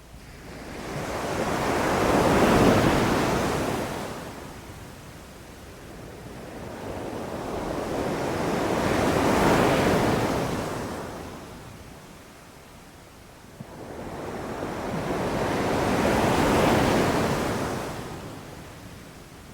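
Ocean waves breaking and washing up a beach, three in turn, each swelling up and fading away about seven seconds apart.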